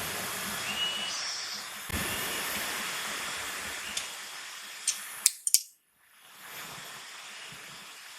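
A steady hiss that fades somewhat after four seconds, followed by a few sharp clicks about five seconds in. The sound cuts out briefly just before six seconds, then a quieter hiss resumes.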